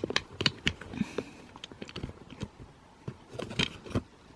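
Small items such as a phone, card holder and sunglasses being packed into a handbag: a series of light clicks, taps and knocks with some rustling, bunched in the first second and again near the end.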